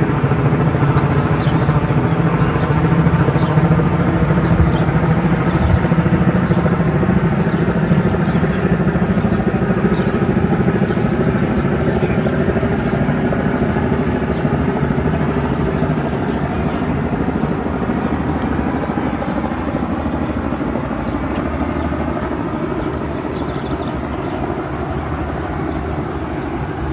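A steady engine drone with many even tones, slowly fading over the span.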